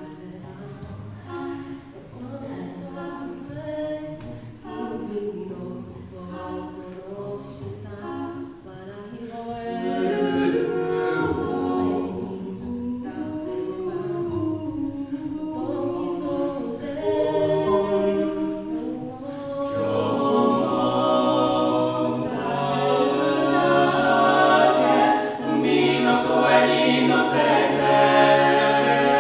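Mixed-voice a cappella group singing a Japanese pop ballad in close harmony, a lead voice over sung backing parts. It starts fairly soft and grows louder in two steps, about a third of the way in and again about two thirds of the way in.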